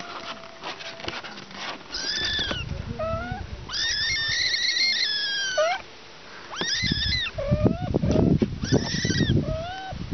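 Kittens mewing in repeated high-pitched cries, one of them long and drawn out near the middle, with a few shorter, lower mews between. A low, muffled noise sits under the calls in the second half.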